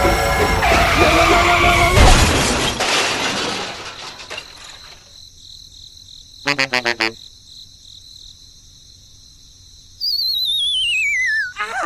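Edited comedy sound effects: a loud crash with breaking noise over the first two seconds, a quick stutter of pitched beeps in the middle, then a long falling, wavering whistle near the end.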